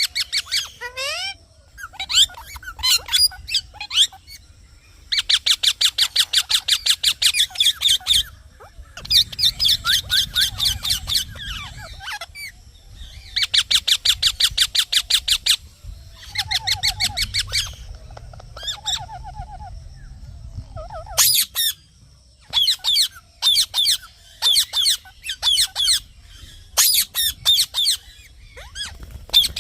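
Green parrot (Indian ringneck) chirping in bouts of fast, high repeated notes, each run lasting a couple of seconds, with short pauses between runs.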